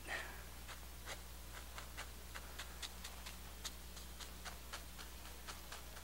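Faint irregular taps and scratches of a bristle brush dabbing oil paint onto a canvas, a few strokes a second, over a steady low hum.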